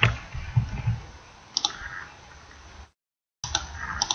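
Computer keyboard and mouse clicks: a run of keystrokes in the first second, then a single sharp click about a second and a half in. The sound cuts out completely for about half a second near the three-second mark, then a few more clicks follow.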